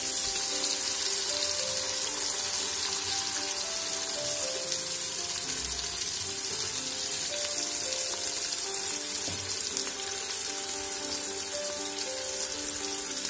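Chopped onion, turnip and pumpkin sizzling steadily in hot oil as tomato sauce is spooned in, with background music playing.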